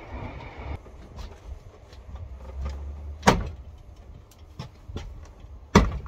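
Plastic retaining clips of an Audi A6 Avant tailgate's interior trim panel popping as the panel is pried and pulled off: two sharp snaps about three and six seconds in, with lighter clicks between, over a low rumble.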